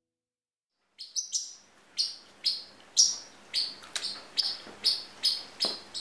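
A bird chirping over and over, short falling chirps at about two to three a second, starting about a second in.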